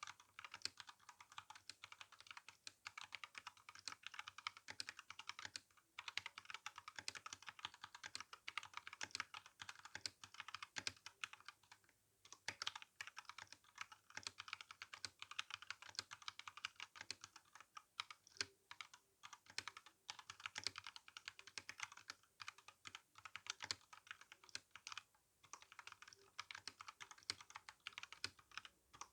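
Typing on an RK61 mechanical keyboard with brown tactile switches and GSA keycaps: a fast, steady run of key clacks, with a few brief pauses.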